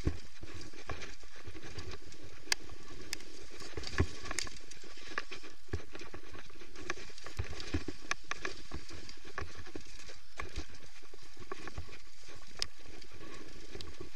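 Downhill mountain bike rattling over a rough dirt trail at speed: tyre noise on dirt with a steady run of knocks and clatter from the bike as it hits bumps, a few louder knocks in the first four seconds.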